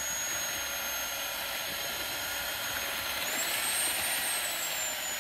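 Electric drill with a paddle mixer running steadily in a bucket, mixing cement-modified patching material. About three seconds in, the motor's whine climbs in pitch, then settles back down.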